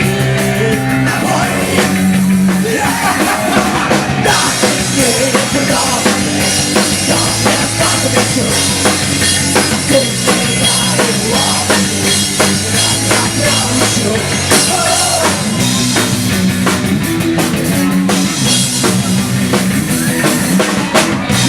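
Punk rock band playing an instrumental passage of the song without vocals, with a drum kit driving it. Crashing cymbals come in about four seconds in.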